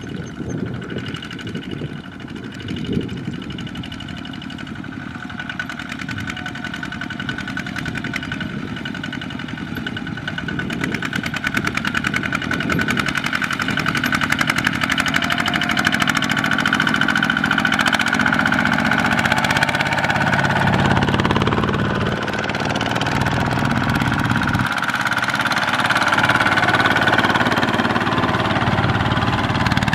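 Single-cylinder diesel engines of Kubota ZT120 two-wheel walking tractors chugging steadily as they pull loaded trailers, growing louder around the middle as a tractor comes close.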